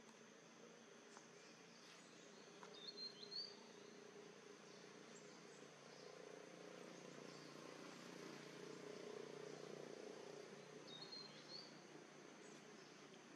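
Faint outdoor ambience: a steady high insect drone over a low background rumble, with two short bird chirps, about three seconds in and again about eleven seconds in.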